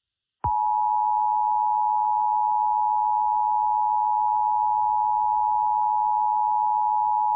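Emergency Alert System attention signal: the steady two-tone alarm (853 and 960 Hz), cutting in about half a second in and holding without a break.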